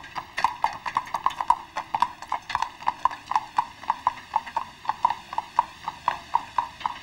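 A steady, quick clip-clop of short hollow knocks, about six a second, like hooves trotting on a hard surface.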